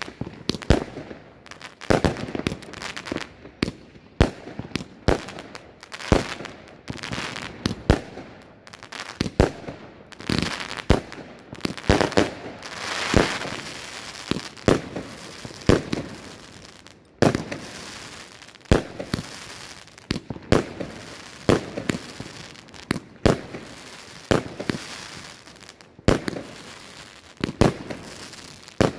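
A Pinto 'Sydney' compound firework cake (188 shots, 25–30 mm calibre) firing shot after shot, with sharp bangs coming irregularly at about one to two a second. There is a longer hissing stretch about twelve seconds in.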